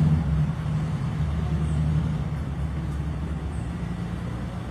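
Steady low rumble of outdoor urban background noise, a machine-like hum with a few faint high chirps over it.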